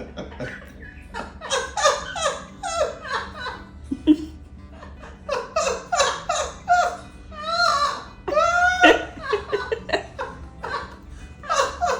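An Amazon parrot and a man laughing back and forth in quick runs of loud ha-ha bursts, the loudest near the end. The parrot's loud laughing is a sign of excitement.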